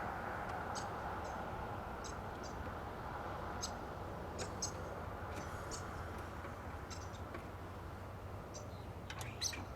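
Short, high chirps come at irregular intervals over a steady low background noise, with a small cluster near the end.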